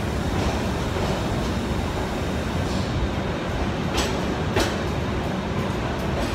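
Passenger train rolling along a station platform, heard from an open coach doorway: a steady low rumble of the running train, with two sharp clacks about four and four and a half seconds in.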